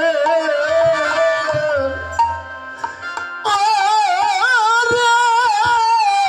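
Bengali lila kirtan singing: a voice holding long, wavering devotional notes over hand-drum accompaniment. About halfway through, the voice rises to a louder, higher held note.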